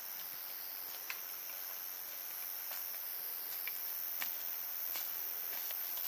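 Crickets trilling steadily, high-pitched, with a few scattered light clicks and taps.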